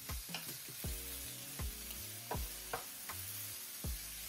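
Sliced bell peppers and onions sizzling in a hot oiled skillet while a wooden spatula stirs them, with a scraping stroke every half second or so.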